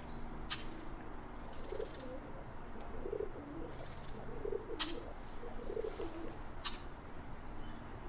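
Mourning dove cooing: a series of low, soft coo notes about a second apart. Three short, high chirps from a small bird cut in near the start, in the middle, and near the end.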